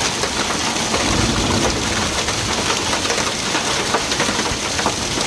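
Hail and rain falling together: a steady, dense hiss, peppered throughout by many sharp ticks of hailstones striking the ground and nearby surfaces.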